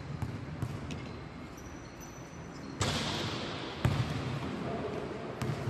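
Basketball dribbled on a hard indoor court, bouncing about two or three times a second. About three seconds in a sudden rush of hiss starts, followed by a loud thump about a second later.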